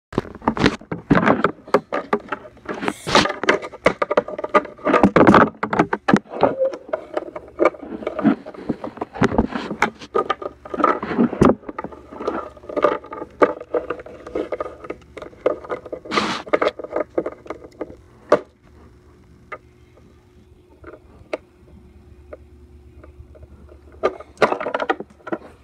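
Knocks, taps and handling noise as plastic toy figures are moved and set down on a wooden tabletop and the camera is bumped. It is busy for the first two-thirds, then quieter with a faint steady hum and a few clicks, before the knocking picks up again near the end.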